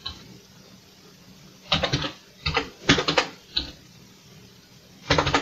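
Keys clacking on a Commodore VIC-20 keyboard as numbers are typed in, in short bursts of a few quick keystrokes with pauses between.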